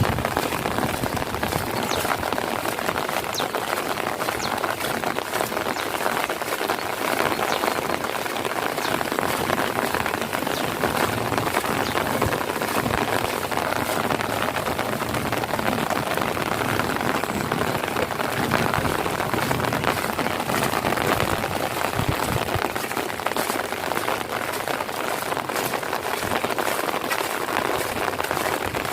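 Heavy rain falling steadily onto puddles and standing water, an even, unbroken hiss of countless drops.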